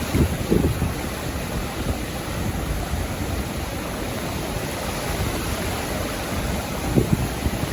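Sea surf washing onto a sandy beach as a steady rushing noise, with wind buffeting the microphone in short low thumps just after the start and again about seven seconds in.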